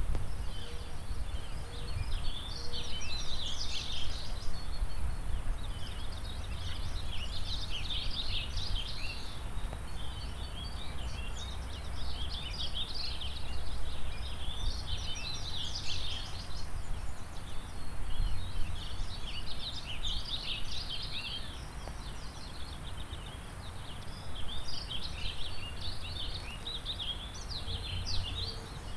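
Several songbirds singing over one another in a continuous chorus of quick, high chirps and trills, above a low steady rumble.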